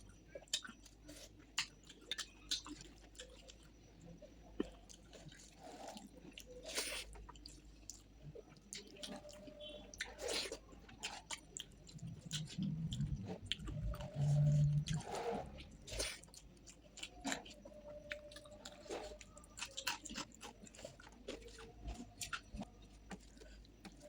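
Close-up chewing and wet mouth sounds of someone eating rice and curry, with irregular small clicks and smacks. About halfway through comes a louder, low-pitched hum lasting a couple of seconds.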